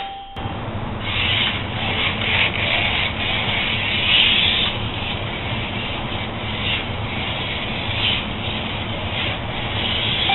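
Slot cars running on a wooden routed track at 10 volts: a steady electric motor hum with a rubbing hiss from the guides and braids in the slots, swelling and fading every second or so as cars pass. A short electronic beep sounds at the very start, followed by a brief drop before the running noise picks up.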